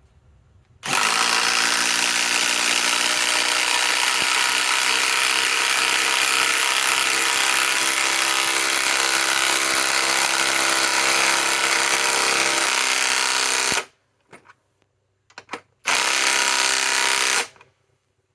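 Ryobi PSBIW25 compact cordless impact wrench hammering steadily for about thirteen seconds as it drives a 5-inch lag screw, then stopping suddenly. Two short blips of the trigger and a final run of about a second and a half follow.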